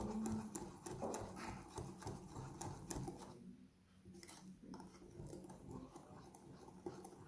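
Wire balloon whisk beating chocolate cake batter in a glass bowl: a fast, even run of light clicks and wet slaps, fainter after about three seconds.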